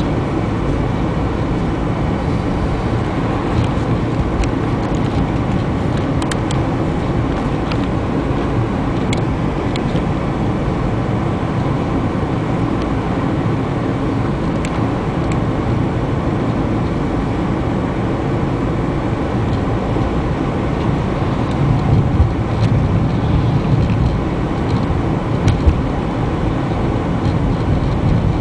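Steady road noise heard from inside a moving car: engine and tyres running on asphalt, with a few faint clicks in the first half. The low rumble grows louder for a few seconds near the end.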